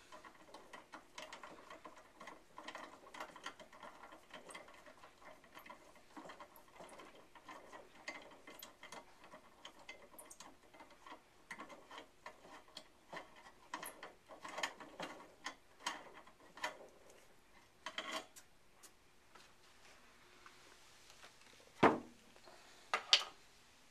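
Faint small metal clicks, scrapes and rattles as a table lamp's finial, harp and shade are handled to get at the bulb, with a sharp knock near the end.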